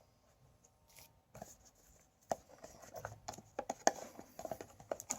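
Card game cards and packaging being handled: a scatter of light clicks, taps and rustles that starts about a second and a half in and grows busier toward the end.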